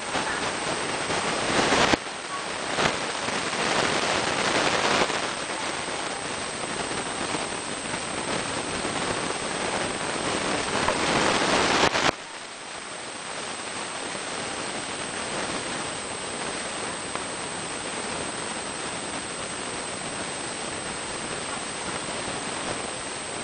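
Steady hiss of recording noise, with a thin constant high-pitched whine running through it. About halfway through, the hiss drops abruptly to a lower level.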